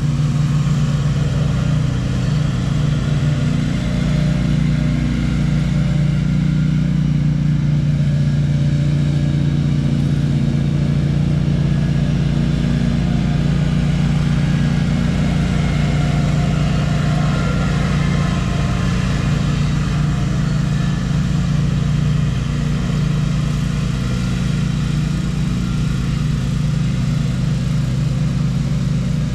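An engine running steadily at a constant speed, with no pauses or changes.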